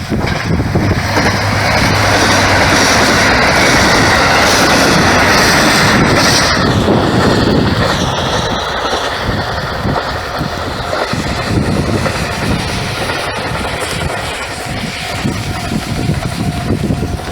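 KiHa 183 series diesel express train running past, its engines and wheels on the rails making a loud rushing rumble that peaks in the first six seconds or so, then dies down as the train moves away.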